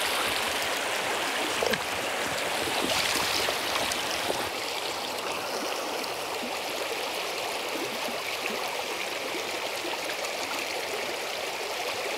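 Shallow, fast river rapids rushing over stones: a steady water noise, a little louder in the first few seconds.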